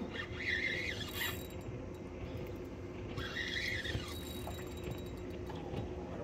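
Shimano front-drag spinning reel's drag squealing in two short bursts as a hooked fish pulls line off against the bent rod, the sound the angler calls "música shimanesca".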